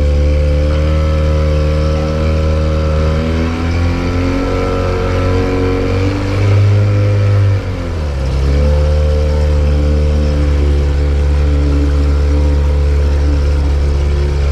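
Boat's outboard motor running under way, its pitch shifting with the throttle. It eases off sharply about eight seconds in and comes straight back up.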